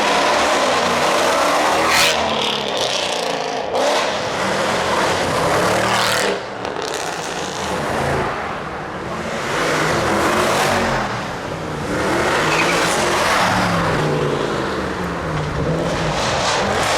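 Mercedes-AMG V8s, mostly C63s with loud aftermarket-style exhausts, revving and accelerating, the engine note rising and falling again and again. A few sharp cracks come about two and four seconds in.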